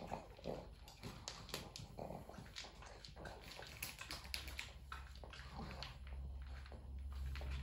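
Pug feeding at a bowl on the floor: irregular wet smacking and clicking mouth sounds.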